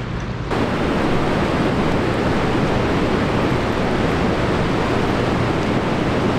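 A steady rushing noise with no distinct events, starting abruptly about half a second in and holding level.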